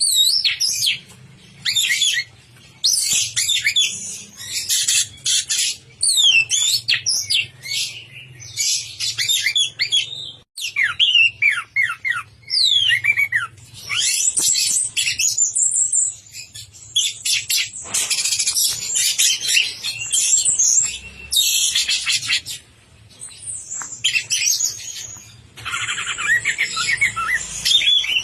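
Orange-headed thrush singing continuously in rapid, varied phrases of chirps and steep downward-sweeping whistles, broken only by short pauses. This is the bird in full, nonstop song, what bird keepers call gacor.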